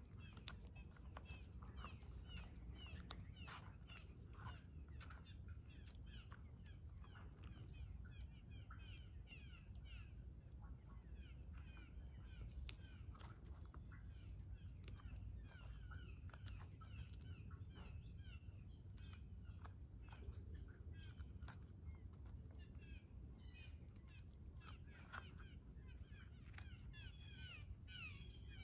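Faint chorus of songbirds: many short falling chirps, with a high thin note repeating about twice a second, over a low steady rumble.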